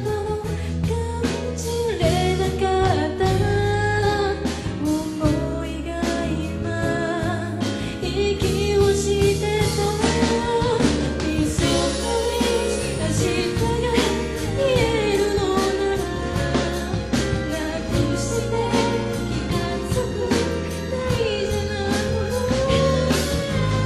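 A woman singing a pop ballad live over band accompaniment, with a sung melody line over steady bass and regular drum hits.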